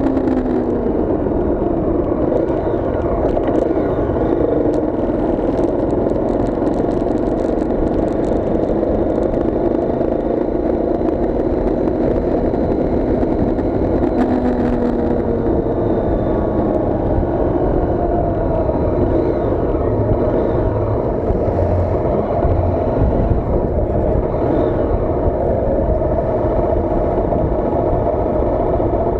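A motor vehicle travelling along a highway: steady engine and tyre-on-road noise, with the engine pitch slowly rising and falling. A run of light rattling clicks comes in from about five to nine seconds in.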